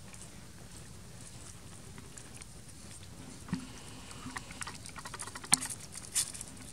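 Rustling and scratching of dry leaves and bark from macaques moving and feeding, with scattered sharp clicks that grow busier in the second half; the loudest click comes about five and a half seconds in.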